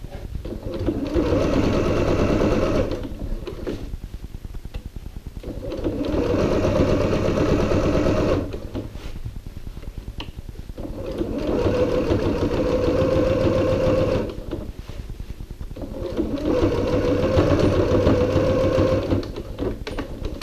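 Electric domestic sewing machine stitching in four runs of about three seconds each, with quieter stretches in between.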